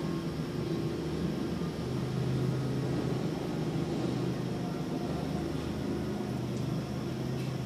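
Steady low mechanical hum with a rumble beneath it.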